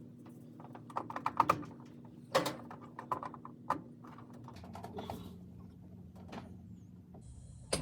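Scattered small plastic clicks and taps, with a quick run of them about a second in, from prying the clip and handling the push-button start switch in a Whirlpool dryer's control panel.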